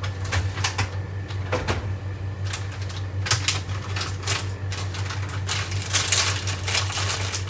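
Rapid, irregular clicking and clattering of small containers and packets being shifted about while rummaging for a seasoning, over a steady low hum.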